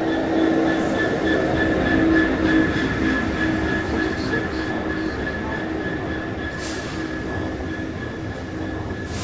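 A train running through the station on the rails: a loud, dense rumble with a steady high-pitched whine over it, loudest about two seconds in. It cuts off suddenly at the end.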